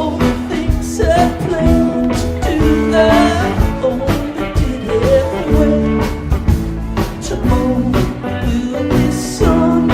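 Live rock band playing a slow song: an electric guitar carries a bending lead melody over a steady drum beat.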